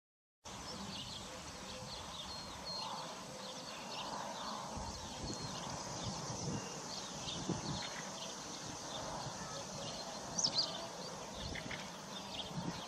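Outdoor ambience cutting in abruptly about half a second in: a steady hiss with many short, high chirps scattered throughout and a few soft low knocks.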